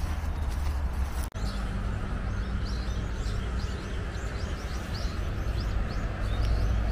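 Small birds chirping in short, rapid, high calls, several a second, over a steady low background rumble.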